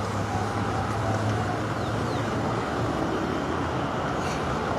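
Steady rumble of road traffic, a continuous noise with a low hum underneath.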